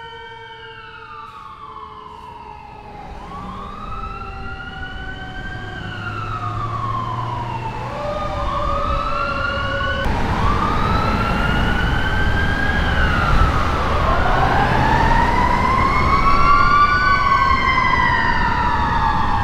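Emergency vehicle sirens wailing in slow rising and falling sweeps, growing steadily louder, with two sirens overlapping in the second half over low traffic rumble.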